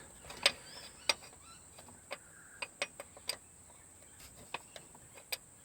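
Quiet, scattered sharp clicks and taps of a 5/8-inch open-end spanner on an automatic transmission's line fitting, worked a little turn at a time.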